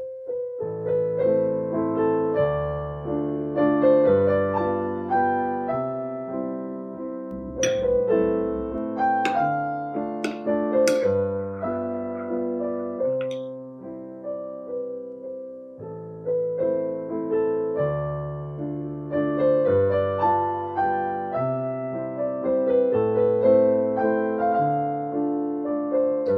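Background piano music: a melody over chords, each note struck and then fading.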